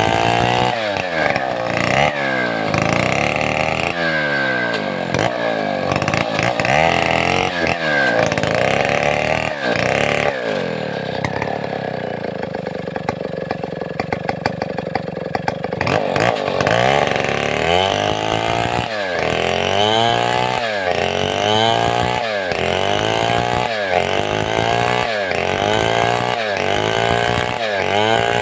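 Large Stihl 070-type two-stroke chainsaw running hard, its engine pitch swinging down and back up about once a second or two as it works through the wood. For several seconds in the middle it holds a steadier, lower pitch before the rise-and-fall pattern resumes.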